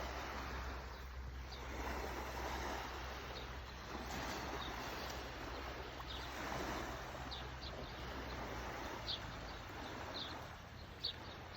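Small birds chirping in short, high calls scattered every second or so, over a steady rushing background noise with a low hum.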